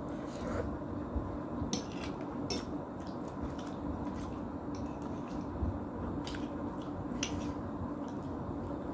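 Close-up eating sounds: a mouth chewing instant black-bean noodles, with a scattered handful of short wet clicks and smacks over a steady low background hum.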